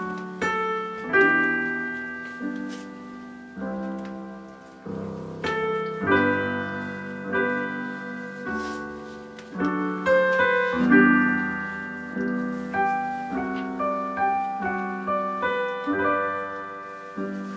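Piano playing a classical passage: chords and single notes struck about once a second and left to ring and fade.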